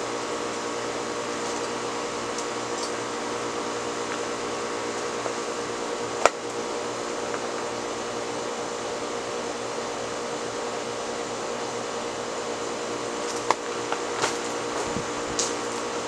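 Southern Fan Company Tara ceiling fan running at speed, with a steady motor hum and the whoosh of its blades. A sharp click about six seconds in and a few more near the end.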